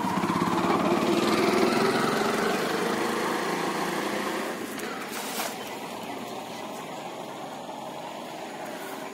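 A small engine running, its pitch gliding slowly, loudest for the first few seconds and fading after about four seconds. About five seconds in comes a brief splash as a cast net lands on the pond.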